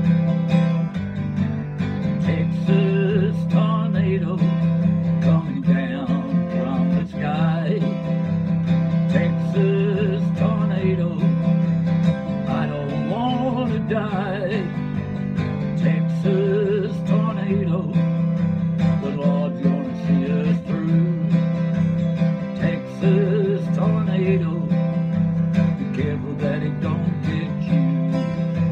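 Acoustic guitar strummed steadily with a man singing over it in phrases, a country song.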